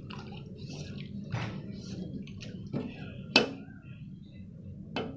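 Wooden spoon stirring a thick liquid agar-agar mixture in a metal pot, with the swish of the liquid and several sharp knocks of the spoon against the pot. The loudest knock comes about three and a half seconds in.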